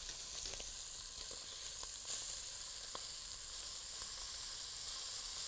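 Lamb searing in hot fat in a heavy pot: a steady sizzle, with a few light clicks of metal tongs against the pot as the pieces are turned.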